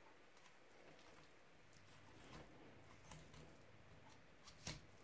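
Near silence, with faint soft clicks and squelches of a knife and fingers working the flesh of a raw chicken, and one sharper tap about four and a half seconds in.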